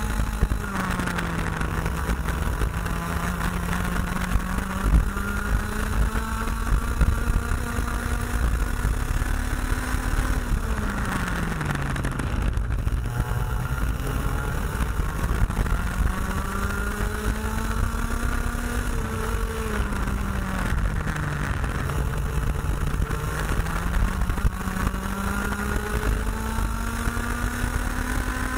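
IAME X30 125cc two-stroke kart engine at racing speed, its note climbing slowly on the throttle and dropping sharply twice as the kart slows for corners, then rising again as it pulls out. Heavy wind rumble on the onboard microphone.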